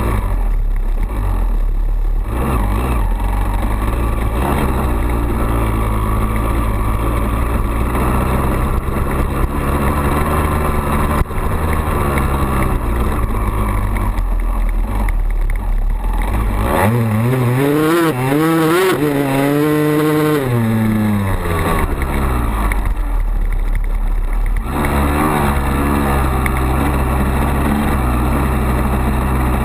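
2002 Honda CR250's two-stroke single-cylinder engine running steadily at low revs under way, revving up and back down a couple of times about two-thirds of the way through.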